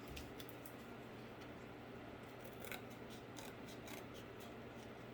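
Faint, scattered small clicks and rustles of cardboard being handled and worked by hand, over a low steady hum.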